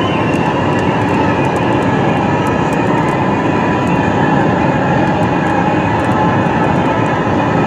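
Inside a car driving at highway speed: steady tyre and wind noise from the road, with a few faint ticks.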